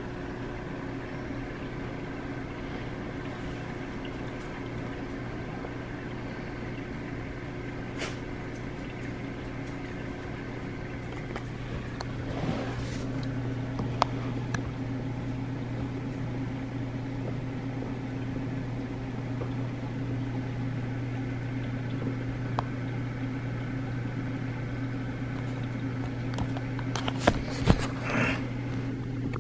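Steady low electric hum of reef aquarium pumps, getting a little louder about twelve seconds in, with a few light clicks.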